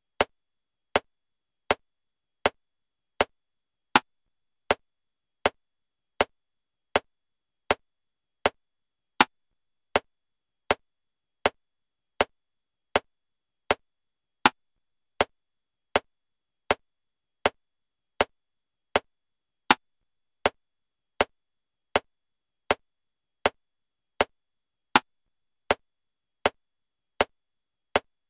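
Metronome clicking at 80 beats per minute in 7/4 time: short, evenly spaced clicks a little under one a second, with a louder accented click on every seventh beat marking the start of each bar.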